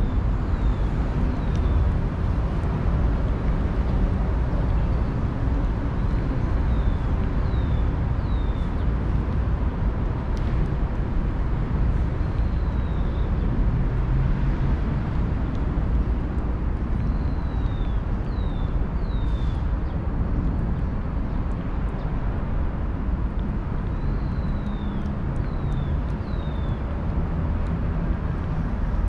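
Steady low rumble of distant traffic, with short high bird chirps every few seconds, often two or three in quick succession. Faint close clicks come from a cat licking and chewing wet food from a dish.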